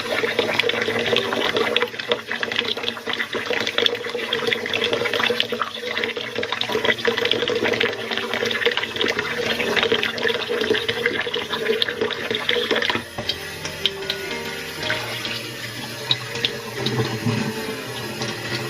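Kitchen tap running and water splashing in a pot as jasmine rice is washed at the sink. About two-thirds of the way through the running water eases off, leaving lighter splashes and a few clinks.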